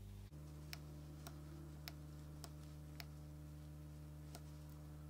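A watchmaker's screwdriver working a small screw in a watch movement's steel plate: light, faint metallic clicks, five at about one every half second and one more near the end, over a steady low hum.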